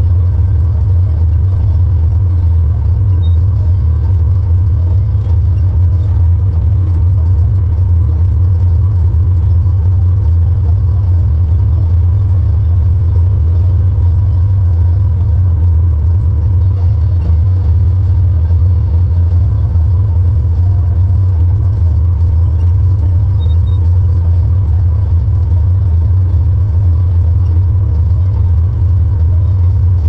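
Tractor engine running steadily under load, heard from inside the cab as a constant low rumble with no change in pace.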